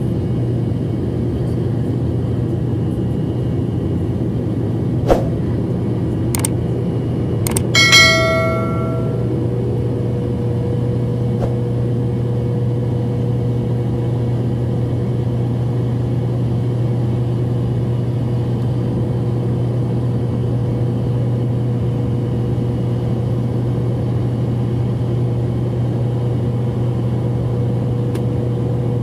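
Steady jet airliner cabin noise while climbing after takeoff: a low hum of engines and airflow with a faint steady tone. About eight seconds in, after a few sharp clicks, a cabin chime rings once and fades.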